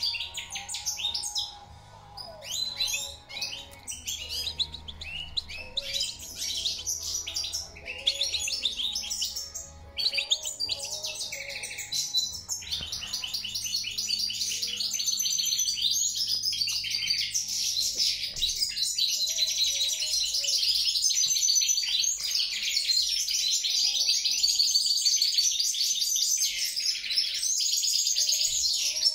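European goldfinch singing its fast, liquid twittering song, in broken phrases for the first dozen seconds, then in an almost unbroken stream.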